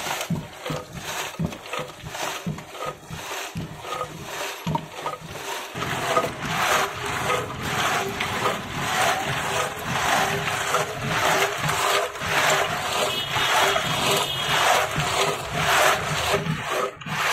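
Jute-wrapped clay pot packed with ice and kulfi moulds being worked back and forth by hand, the ice and moulds grinding and rubbing against each other and the pot. It starts as separate scraping strokes and becomes a denser, continuous grinding from about six seconds in.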